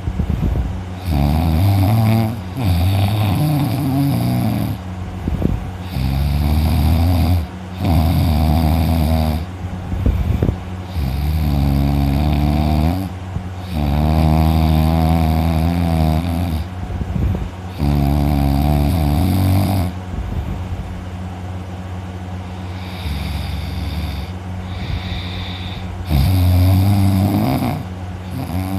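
A person snoring loudly in exhausted sleep: one long, rough snore about every two seconds, some with a steady buzzing pitch. The snores turn quieter for a few seconds late on, then grow loud again near the end.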